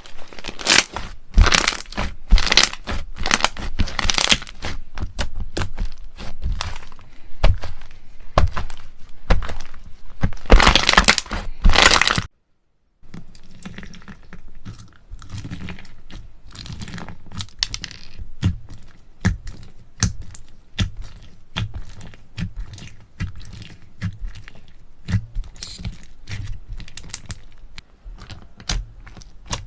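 Slime being squeezed and pressed by hand, giving rapid, irregular crackling and popping clicks. A short silent break comes about twelve seconds in, and the crackling after it is quieter.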